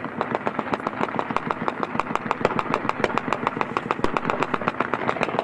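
Sustained automatic gunfire: rapid sharp shots, many a second, keep up without a break.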